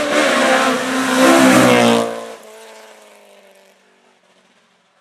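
Hill climb race car engine at high revs passing close, its pitch rising and falling with the throttle. It is loudest about a second and a half in, drops away suddenly past the two-second mark, and fades to faint.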